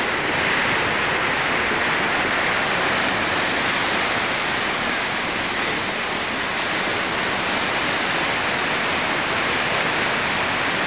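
Fast floodwater rushing and churning past a railing: a steady, loud rush of turbulent white water.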